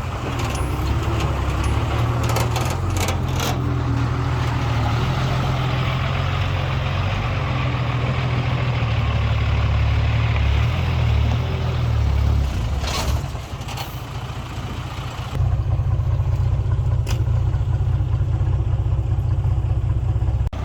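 Heavy diesel construction machinery running steadily under load, with a few sharp metallic clanks. The engine sound drops briefly about two-thirds of the way through, then comes back suddenly and stays steady to the end.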